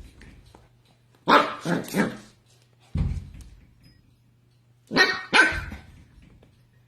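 A dog barking: three quick barks, then after a pause two more, with a low thump between the two groups.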